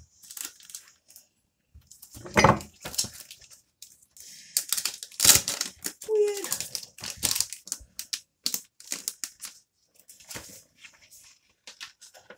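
Thin paper pages of a comic book being turned and handled, rustling and crinkling in irregular bursts.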